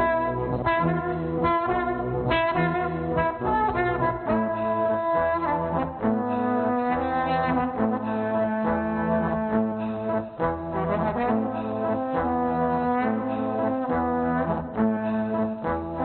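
Trombone played live, with several layers of trombone sound at the same time over a pulsing low bass line, built up with live looping electronics.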